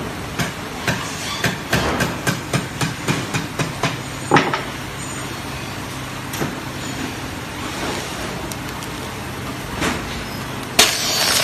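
Automatic continuous band sealer running with a steady low motor hum. A quick irregular run of clicks and knocks comes in the first few seconds, and a loud, short noisy burst comes near the end as a plastic bag is fed into the sealing jaws.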